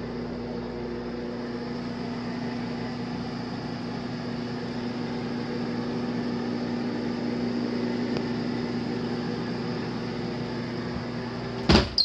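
Microwave oven running with a steady hum, then a loud click near the end, after which the hum drops away.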